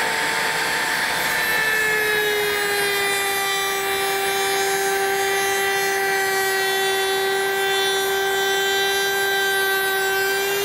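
Table-mounted router running with a rabbeting bit, cutting a small rabbet into the edge of a wooden lid: a steady high whine that drops a little in pitch about a second in as the bit takes the cut, then holds under load.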